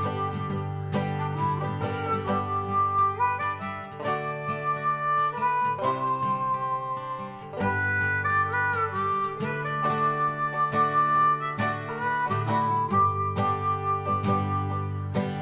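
Background music led by a harmonica playing held, changing notes over a guitar accompaniment.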